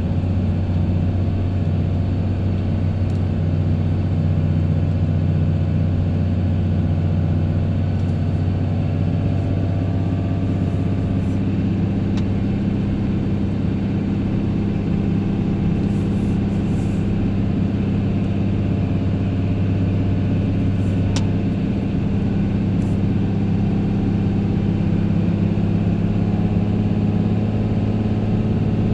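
A vehicle's engine running with a steady low hum, heard from inside the cab as it rolls slowly.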